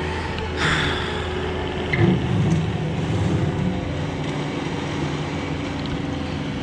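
Cat skid steer's small three-cylinder diesel engine running loudly and steadily. There is a brief burst of noise about half a second in, and the engine surges louder for a second or two from about two seconds in as the machine works.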